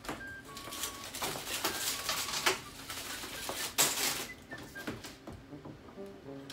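Handling noise from a case of plastic water bottles: rustling, crinkling and knocks in quick irregular strokes, the loudest near the middle, with a few faint short chirps.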